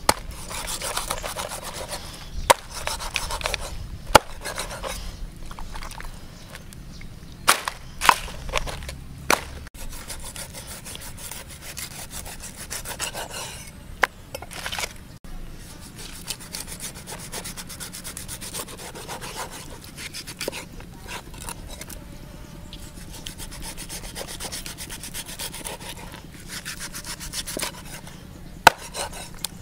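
A large knife slicing and scraping through stingray skin and flesh, with sharp knocks of the blade on a wooden chopping board every few seconds, the loudest near the end.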